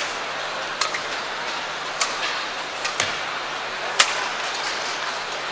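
Badminton rally: rackets striking a shuttlecock back and forth, about five sharp hits roughly a second apart, over the steady hum of an indoor arena.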